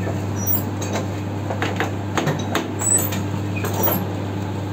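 Irregular clicks and taps, about a dozen spread unevenly, over a steady low hum.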